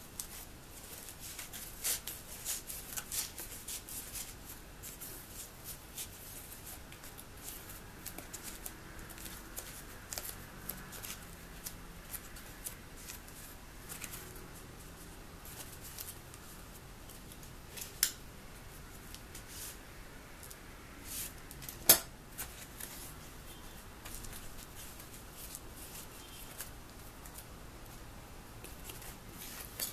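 Thin polyethylene foam underlayment being handled and folded by hand: a dense, irregular crackling and rustling, with two sharp clicks standing out in the second half, the later one the loudest.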